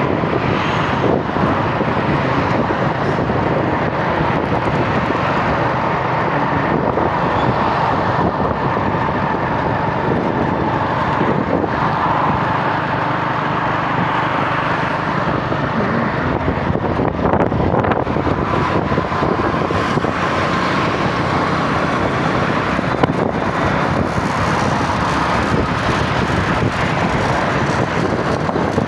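Steady road noise of a moving vehicle travelling at speed, with traffic around it and a faint wavering whine.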